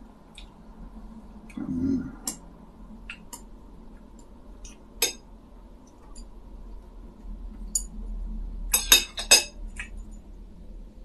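Tableware clinking and clicking during a meal: chopsticks, bowls and glasses tapping now and then, with a quick run of clinks near the end. A brief low sound comes about two seconds in.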